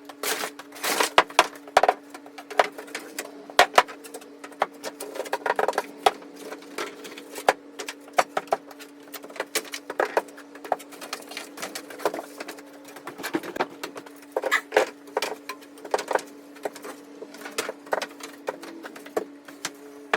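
Old wooden fence pickets being handled and pulled from a pile, with irregular wooden knocks and clatters, over a steady low hum.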